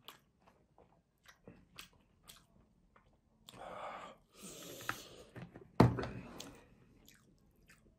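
Small wet mouth clicks of chewing, then dark sauce drizzled from a glass bottle onto grilled kebab meat for about two seconds, and a single sharp knock about six seconds in.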